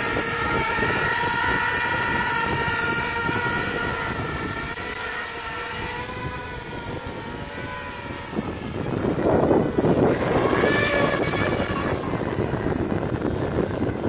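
RoboCat 270 racing quadcopter's motors and propellers whining in flight, the pitch wavering as the throttle changes. About nine seconds in, a louder rushing noise rises over the whine.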